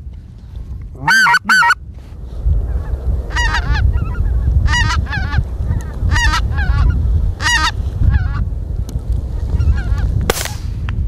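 Hunter's goose call blown close by, three loud honks about a second in, followed by a run of answering honks from white-fronted geese flying over, over a low rumble. A single short, sharp noise sounds near the end.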